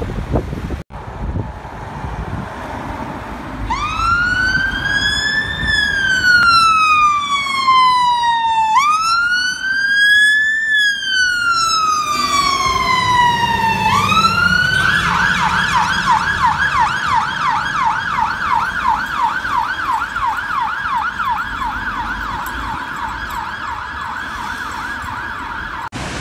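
Fire engine's electronic siren on a slow wail, rising and falling twice, then switching about fifteen seconds in to a fast yelp of about three to four sweeps a second. Street and traffic noise fills the first few seconds before the siren starts.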